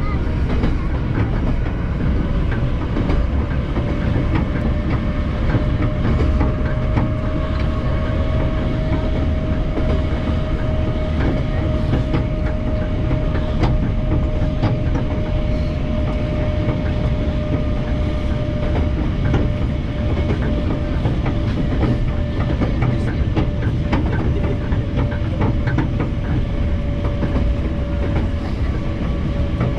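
Ezh3 metro train running at speed, heard from inside the car: a steady low rumble of wheels on rails with scattered clicks and a steady whine that rises slightly in the first few seconds and then holds.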